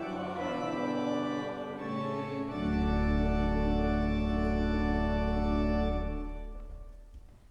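Church organ playing the closing chords of a hymn, ending on a deep full chord held for about three seconds from two and a half seconds in, then released and dying away.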